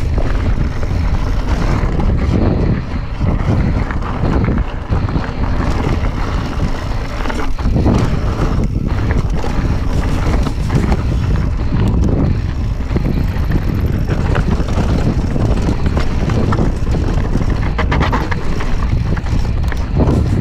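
Mountain bike rattling and clattering over a rocky, loose-gravel descent, with frequent short knocks from the wheels striking stones. Wind buffets the camera microphone, giving a constant low rumble under the rattling.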